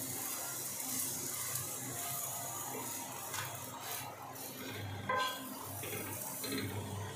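Oil sizzling under a stuffed roti on a tawa, with a metal spatula scraping and clicking against the pan. A ringing metallic clink about five seconds in.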